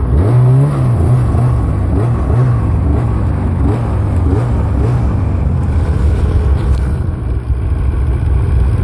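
Arctic Cat mountain snowmobile's two-stroke engine revving up and down again and again, blipped throttle over a steady low rumble.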